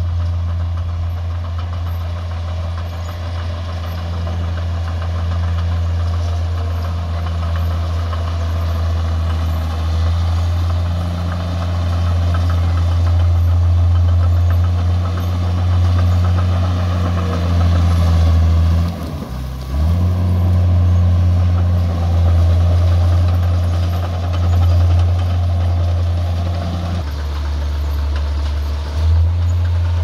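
Heavy diesel engine of earthmoving machinery running steadily, its note dipping briefly about two-thirds of the way through and shifting again near the end.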